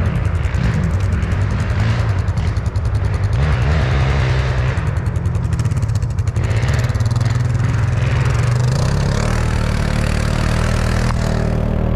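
ATV engine running under throttle, its pitch rising and falling over the first few seconds and then holding steadier, while one quad tows another on a strap through brush.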